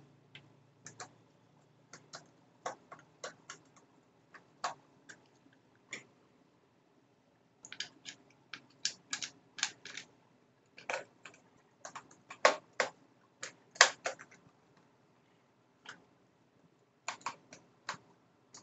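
Irregular sharp clicks and taps, some in quick clusters, as a hand screwdriver and fingers work screws into the plastic housing of a Bosch cordless-drill battery pack.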